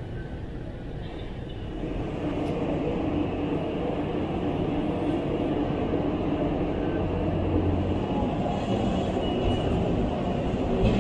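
Steady low rumble and hiss of background noise, growing louder about two seconds in and then holding steady.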